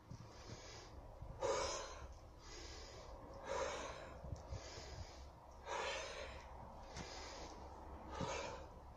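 A man breathing hard after sledgehammer exercise: deep, noisy breaths in and out, about one a second, as he catches his breath.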